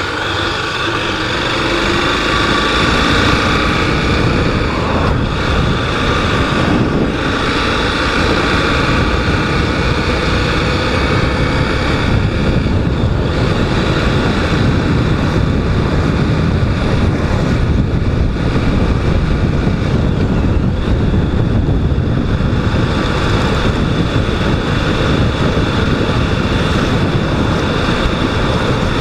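Honda Twister 250 motorcycle riding, its single-cylinder engine running steadily under way, with wind rushing over the microphone.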